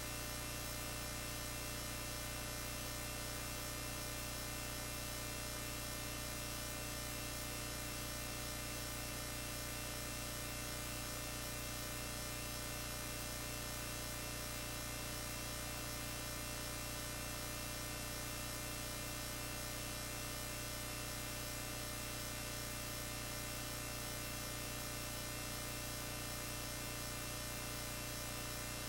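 Steady electrical mains hum and buzz, unchanging throughout, from the EIKI SNT-0 sound projector's audio output playing a film with no sound track.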